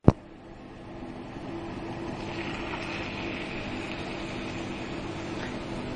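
Back bacon rashers sizzling and bubbling in a dry frying pan with a splash of hot water added to braise them. The sizzle builds over the first couple of seconds and then holds steady, after a click at the very start.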